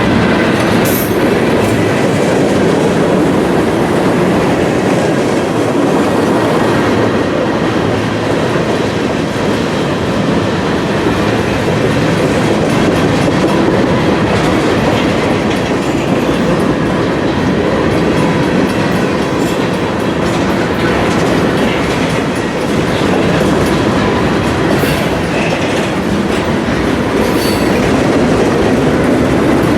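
Railroad cars of a passing train rolling by at close range, a steady loud rumble with wheels clacking over the rail joints.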